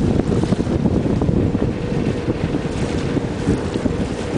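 A ferry boat's engine running steadily, with wind buffeting the microphone. The sound is a constant low rumble with a faint steady hum.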